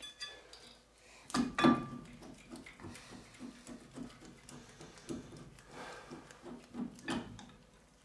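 Metal clinks and knocks of a brake caliper, spacer shim and mounting bolt being handled and fitted by hand, with two sharp clinks about a second and a half in, followed by soft low ticks at a fairly steady pace, about four a second.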